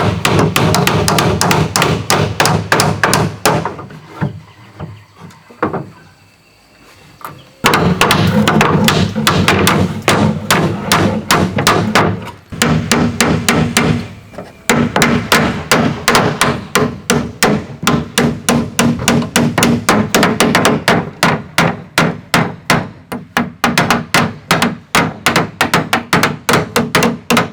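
Hammer striking wood, in long runs of quick blows, several a second, with a short pause about four seconds in, as a wooden shelf is nailed together.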